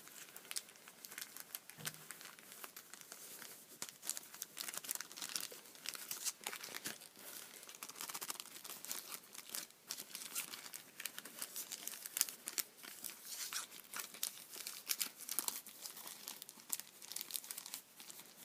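Thin clear plastic bag around a set of drink mats crinkling and crackling as it is handled, in many quick, sharp crackles.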